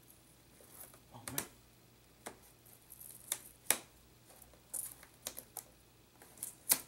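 A knife blade cutting and scraping along packing tape on a cardboard box: irregular sharp clicks and short scratchy scrapes, the loudest about halfway through and near the end.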